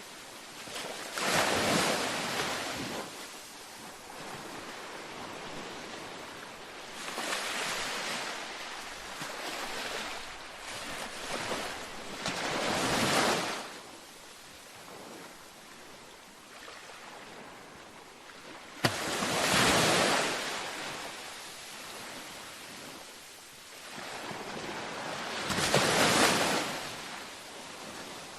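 Gentle ocean waves breaking on a beach: about five swells of surf hiss, roughly six seconds apart, each rising and washing away. About two-thirds through, one swell starts abruptly with a brief click.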